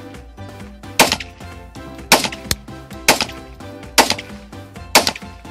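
Semi-automatic pistol fired five times at a steady pace, about one shot a second, each a sharp crack. Background music plays underneath.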